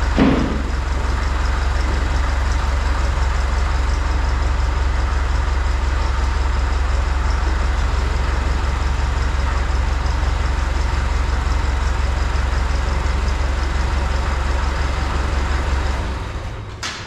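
An engine idling steadily with an even low pulse, and a single knock just after the start.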